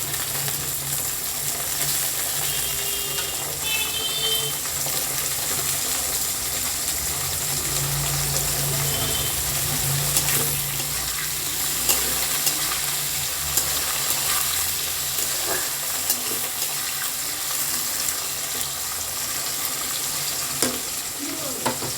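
Potatoes and carrots frying in oil in a kadai: a steady sizzle, with a few sharp clicks of a spatula stirring.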